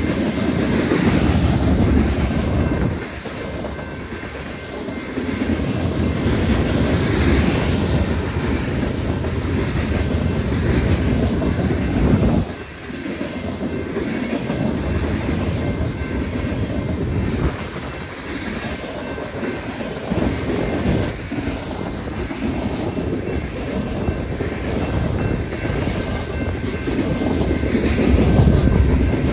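Freight train cars rolling past, a continuous rumble of steel wheels on rail that swells and dips briefly a few times.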